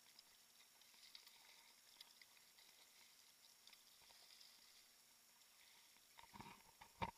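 Faint lapping and small splashes of water against a kayak. Near the end come a few low bumps, then one sharp knock.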